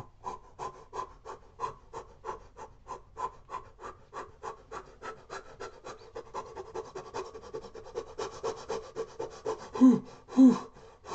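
A man's breathing while running: rhythmic huffing breaths at about three a second, getting quicker after about six seconds. Near the end come two loud, voiced, panting gasps as he finishes out of breath.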